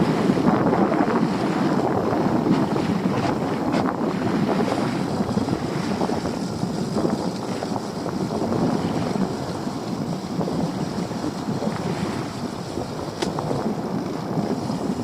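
Wind buffeting the microphone over the wash of sea water around a small boat: a steady rushing noise with no engine note.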